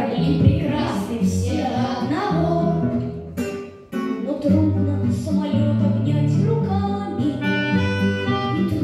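Children's trio singing a song in unison to a strummed acoustic guitar. There is a sharp tap and a brief drop in the music about three and a half seconds in, then the song goes on.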